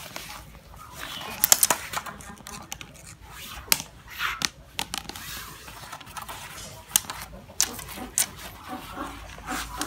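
Bamboo frog-fishing rods clattering and knocking on a concrete floor as they are pulled out of a plastic bag, with the bag rustling. Irregular sharp clicks and knocks.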